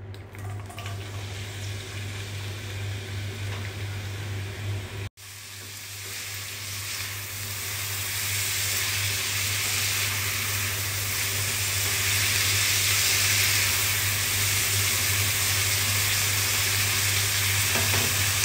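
Sliced onions sizzling in hot oil in a frying pan as they are stirred. The sizzle breaks off briefly about five seconds in, then grows louder over the next few seconds and holds steady, over a steady low hum.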